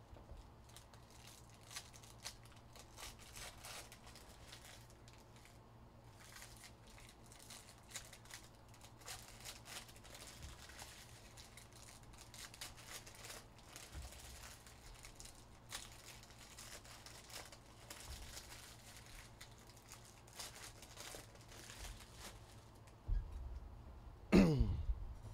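Card-pack wrappers crinkling and tearing as 2023 Panini Mosaic NFL packs are opened, with trading cards rustling as they are handled, in soft irregular bursts. Near the end comes a louder knock, then a short squeak that falls sharply in pitch.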